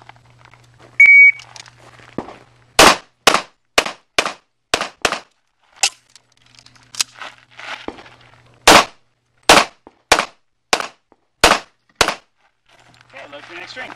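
A shot timer's short high start beep about a second in, then a pistol firing about fourteen shots in quick pairs and strings over some nine seconds, with a break of about two seconds near the middle.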